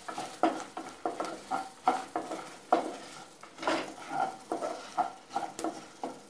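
A spatula stirring small onions, dry red chillies, curry leaves, cumin and coriander seeds as they roast in oil in a nonstick kadai. It makes irregular scrapes and knocks against the pan, two to four a second.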